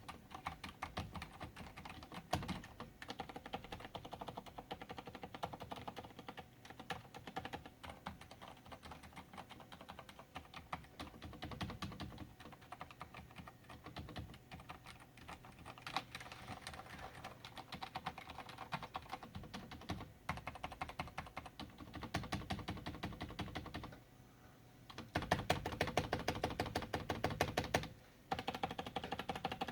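Filco Silent S mechanical keyboard typed on hard and fast, a dense rapid clatter of keystrokes. After a brief pause about 24 seconds in, a louder burst of heavy hammering follows.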